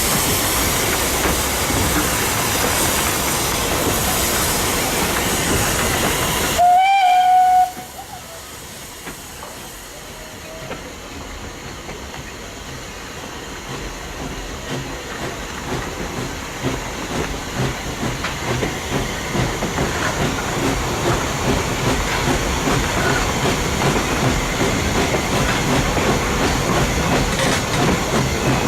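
Vintage steam train running with a loud steady hiss, then a short steam whistle blast about a quarter of the way in. The sound then drops abruptly, and the rumble and clatter of the carriages on the rails slowly builds back up.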